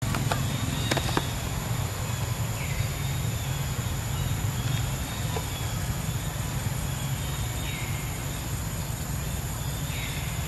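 Steady outdoor ambience: a constant low rumble with a thin, steady high-pitched drone over it, a few short chirps and a couple of light clicks in the first seconds.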